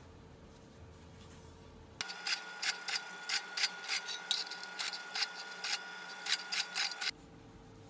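Drill press motor running with a low hum. About two seconds in, a drill bit starts cutting into thin sheet metal: a steady motor whine with irregular scraping, rasping bites, two or three a second. About a second before the end it drops back to the low hum.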